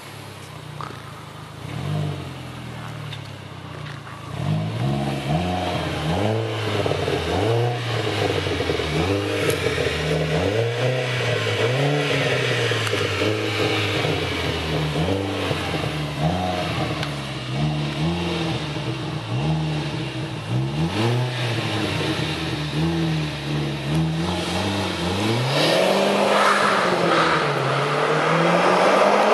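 Audi A4 1.8 turbo four-cylinder engine through a custom stainless-steel sport exhaust, idling, then revved repeatedly from about four seconds in, the pitch rising and falling with each rev. Near the end it pulls away, accelerating.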